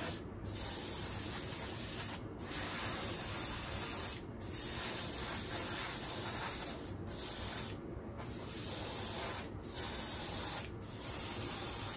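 Iwata Eclipse gravity-feed airbrush spraying a base coat of paint: a steady hiss of air and paint, broken by about seven short pauses each time the trigger is let off.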